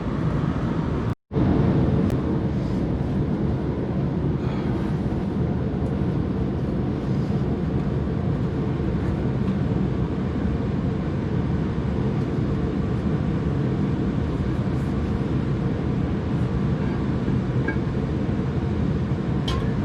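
Steady low rushing machine noise, as of a fan or blower running, with a brief cut to silence about a second in.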